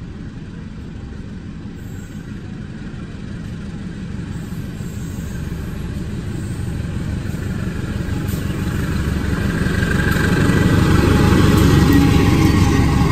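CC203 diesel-electric locomotive approaching and passing close by, its diesel engine rumble growing steadily louder and loudest as it draws level near the end.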